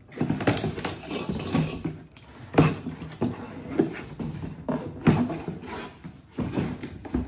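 Cardboard box being cut open with a knife and its flaps pulled back: scraping and rustling of cardboard, with a few sharp knocks.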